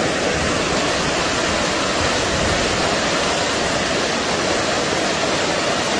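Muddy floodwater pouring down a street as a fast torrent: a steady, loud rushing of churning water.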